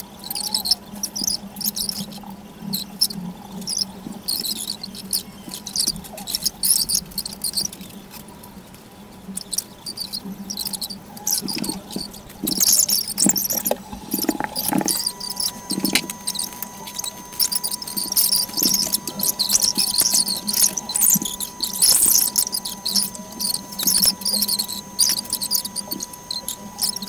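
Gloved hands kneading toner through wet, freshly bleached hair: irregular squelching, rustling and squeaky rubbing of the gloves against the wet strands.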